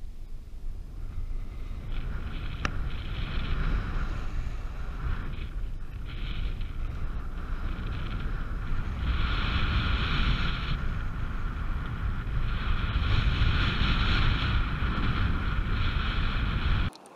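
Wind rushing over the microphone of a paraglider pilot's action camera in flight. A steady low rumble is joined in long stretches by a higher tone that comes and goes. It cuts off suddenly near the end.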